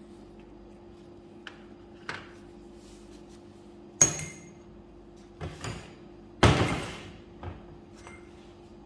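Scattered sharp knocks and clinks of a metal spoon and crackers against a metal baking tray, about eight in all. The two loudest come past the middle, one with a short high ring.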